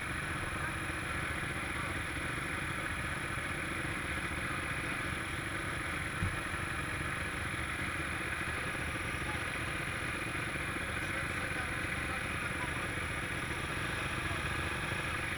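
Quad bike (ATV) engine idling steadily, heard through a microphone on the machine itself. A single brief knock about six seconds in.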